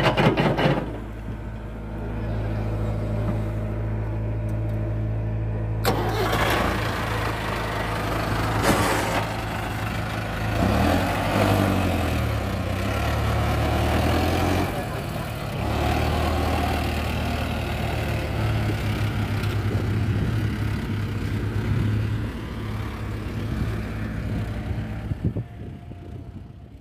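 Diesel engines of a Mahindra Arjun 605 DI tractor pulling a loaded earth trolley and of a tracked excavator, running steadily, with the engine speed rising and falling around the middle.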